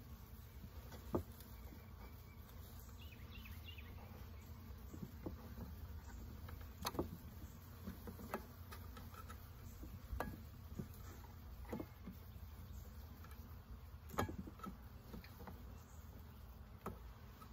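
Honeybees buzzing in a steady hum from a package of bees. Sharp clicks and knocks a few seconds apart come from a metal hive tool working at the wooden package box.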